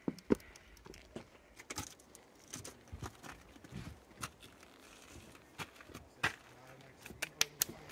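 Scattered scuffs, knocks and scrapes of a person crawling out through a narrow opening in rough basalt lava rock: hands and shoes scraping and tapping on the rock and loose grit, in short irregular bursts.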